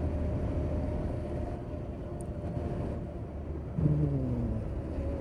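Motorcycle engine running steadily while riding, with road and wind noise. A brief tone falling in pitch cuts in about four seconds in.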